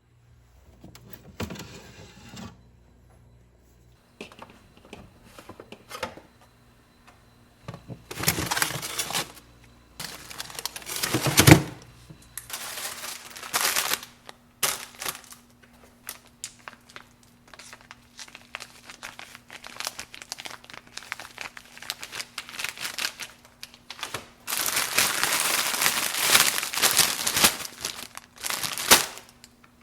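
Crinkling and rustling of plastic packaging with scattered knocks and clatters, as ingredients are unwrapped and handled in the kitchen; the noise comes in irregular bursts, with a longer stretch of it near the end.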